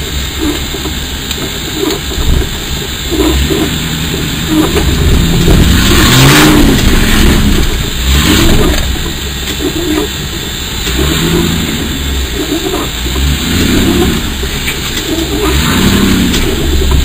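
Off-road 4x4's engine revving in repeated surges that rise and fall in pitch, loudest about halfway through, as the vehicle tries and fails to climb over a pipe obstacle. Heard from inside the cab.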